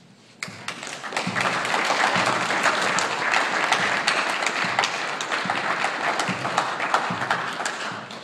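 Audience applauding: a burst of clapping that starts about half a second in and dies away near the end.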